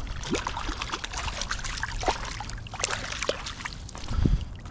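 Water splashing and dripping in irregular bursts as a hooked brown trout thrashes at the surface while being landed, with a louder low thump about four seconds in.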